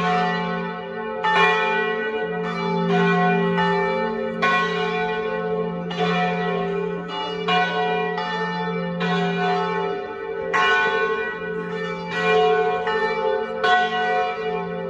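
Church tower bells ringing a peal: several bells struck in quick, uneven succession, each strike ringing on over a steady low hum.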